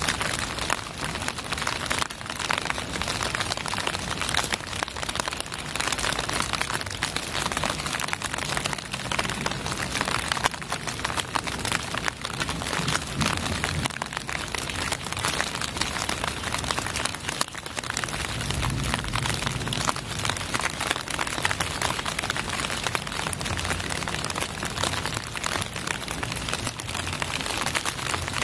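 Steady rain falling, a dense continuous hiss thick with individual drop hits.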